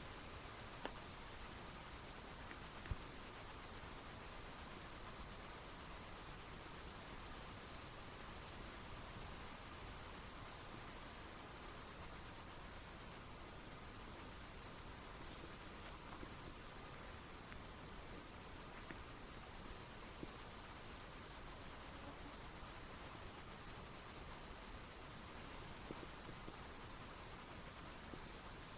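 Crickets chirring: a continuous high-pitched trill of fast, even pulses.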